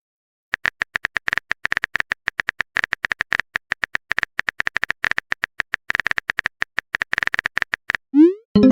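Rapid, irregular clicking of a phone-keyboard typing sound effect, many taps a second. Near the end a short rising whoosh and a bright chime play, a message-sent notification.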